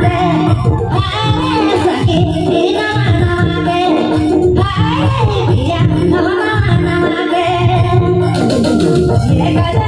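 Live band music: a woman singing into a microphone over a hand-played barrel drum beat and other accompaniment.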